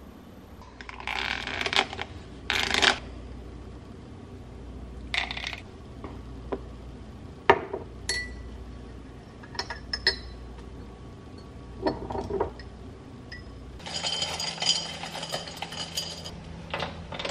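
Kitchen handling sounds: a spoon stirring and clinking against a glass mug, one clink ringing briefly, among separate clatters of glassware and utensils on the counter, with a longer rattle near the end.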